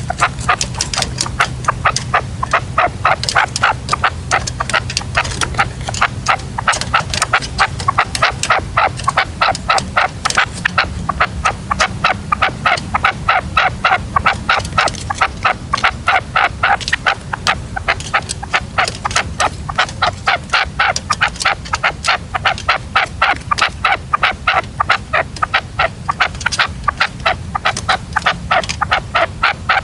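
Red-legged partridge calling: a fast, even series of short, loud calls, about four a second, kept up without a break.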